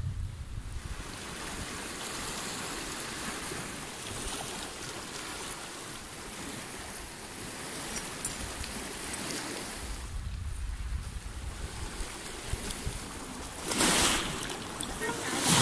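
Sea waves washing over a rocky, pebbly shore, with wind rumbling on the microphone. Two louder surges of wash come near the end.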